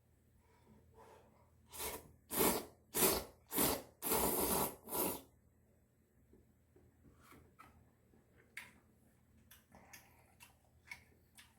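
A person eating close to the microphone: six loud noisy slurps or sucks in quick succession about two seconds in, then soft scattered chewing clicks.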